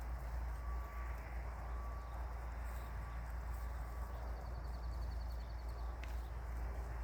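Chickens moving and pecking about in a coop over a steady low hum, with scattered light clicks and a short, fast, high trill about two thirds of the way through.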